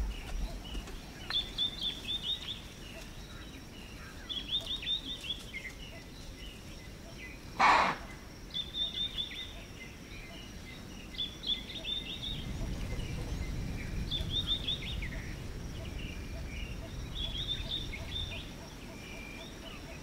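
An impala gives one loud, explosive alarm chuff about eight seconds in, the snort it makes on detecting a predator. A bird sings short, repeated phrases every couple of seconds.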